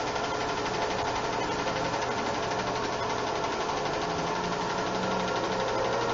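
8mm film projector running: a steady, rapid mechanical clatter from the film transport over a constant motor hum.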